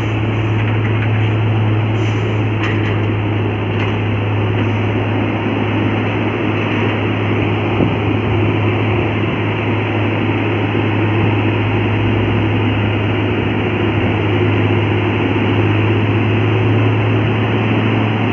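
Vehicle engines running under load on a steep uphill road: a steady deep engine drone with road noise. A heavily loaded truck is crawling up in first gear.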